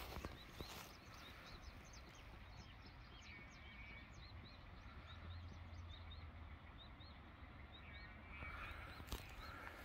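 Faint outdoor ambience of many small, high chirping calls repeated several times a second, over a low rumble of wind or distant traffic.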